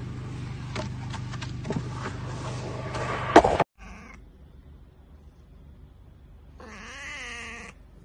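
A cat meowing once near the end, a single wavering meow about a second long. Before it, a steady low hum with scattered clicks and one loud sharp knock a little over three seconds in.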